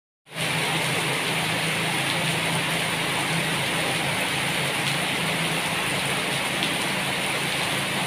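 Steady rain falling on broad-leaved plants, an even hiss of drops on the leaves.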